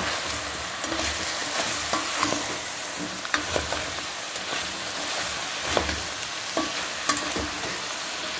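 Cubed squash and ground pork sizzling in hot oil in a stainless steel pot while being stirred with a spoon. The steady sizzle is broken by irregular clinks and scrapes of the spoon against the pot.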